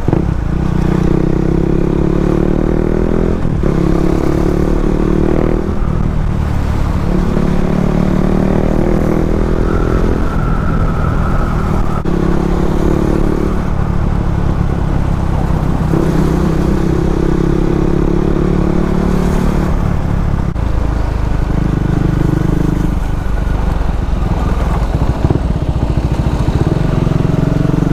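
Motorcycle engine running under way, revving up and dropping back again and again as it accelerates and shifts, over a steady low wind rumble on the microphone.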